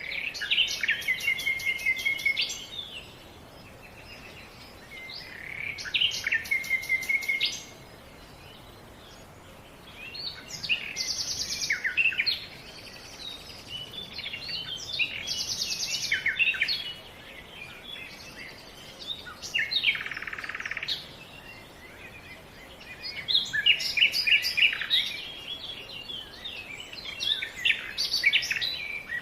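Songbirds singing: bouts of fast trilled, chirping song about two to three seconds long, several ending on a held note, repeating every few seconds with softer chirps in between, over a faint steady hiss.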